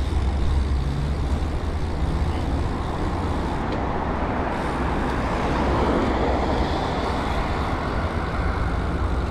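Road traffic noise from cars on the dual carriageway alongside, over a steady low rumble, picked up by a camera on a moving bicycle's handlebars. The traffic rises briefly about six seconds in.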